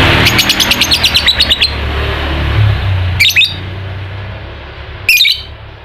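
Lovebird chattering: a fast run of about ten sharp high chirps, the rapid 'ngekek' trill, followed by two short single calls. A low steady hum runs beneath.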